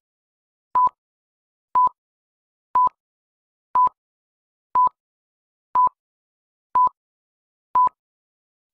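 Film-leader countdown beeps: a short beep at one steady pitch, once a second, with silence between each beep.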